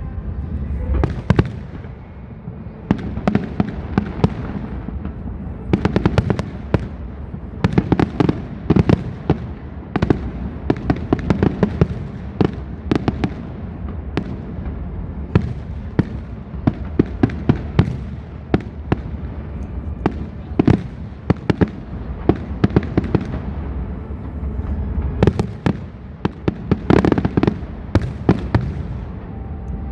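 Aerial fireworks display: a continuous barrage of shells bursting and launching, with many sharp bangs and crackles a second over a steady low rumble, thickest around a quarter of the way in and again near the end.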